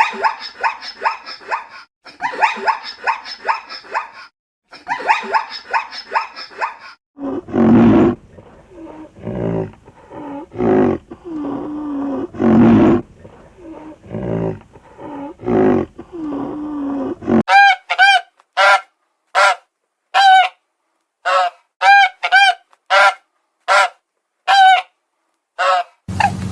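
A series of animal calls in three stretches: rapid high calls in quick clusters for the first several seconds, then lower, longer calls that bend in pitch, and from about 17 seconds in short sharp calls, roughly two a second.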